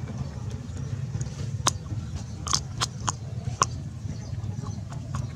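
Puppy chewing and biting on a piece of food, with several sharp crunching snaps in the middle, over a steady low hum.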